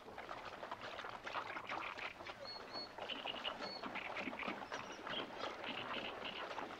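Horses splashing as they wade through a shallow stream, a continuous run of splashes, with a few short high bird chirps over it from about halfway through.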